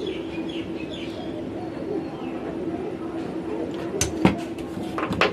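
Birds chirping with pigeons cooing in the background over a steady low hum, then a few sharp clicks from handling parts or tools on the workbench about four seconds in and again near the end.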